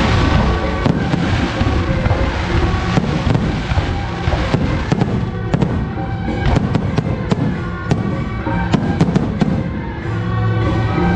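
Firecrackers going off in a rapid, irregular string of sharp bangs, densest through the middle of the stretch, over loud music.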